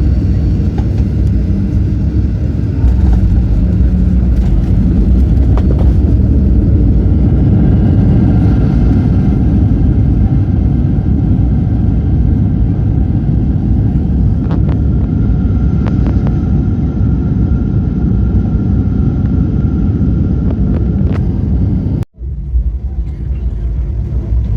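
Steady low rumble of a passenger airliner's cabin after landing, with the engines and rolling noise running evenly. It cuts out for a moment near the end, then resumes.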